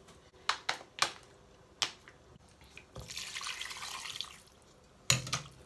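A few light clicks and knocks of kitchen handling, then a little over a second of water running or being poured.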